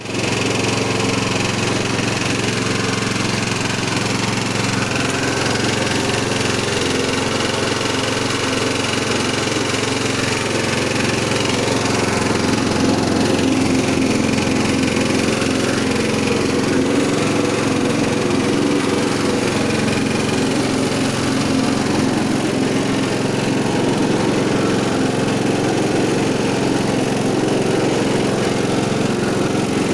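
Motor-driven coconut milk press machine running steadily, with a slight rise in level about twelve seconds in.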